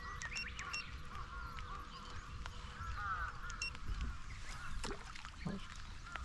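Faint animal calls, many short repeated notes that rise and fall, with a few brief high chirps near the start and again about halfway through.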